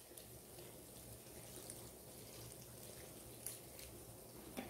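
Faint trickle and drip of cold rinse water running through drained boiled macaroni, with a couple of faint ticks in the second half.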